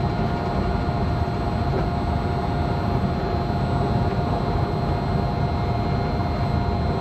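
Disneyland Monorail train running along its beam, heard from inside the front cab: a steady rumble of the rubber tyres on the concrete track with a steady whine from the electric drive.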